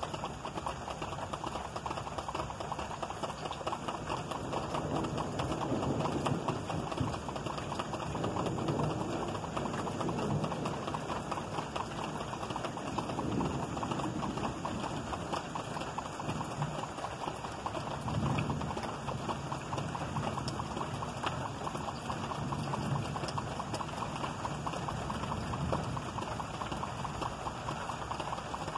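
Rain falling steadily in a thunderstorm, a dense spatter of drops hitting a surface, while low rumbles of thunder swell and fade several times.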